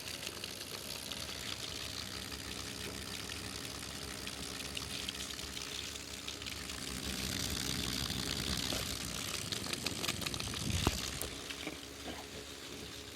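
Homemade ceiling fan running: a steady whoosh of moving air over a low motor hum, growing louder for a few seconds past the middle, with a single knock near the end.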